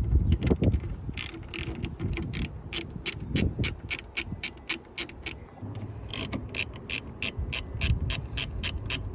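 Ratchet with a Torx bit clicking in quick, even runs of about five clicks a second as airbox lid screws are undone, with a pause partway through and a few low knocks.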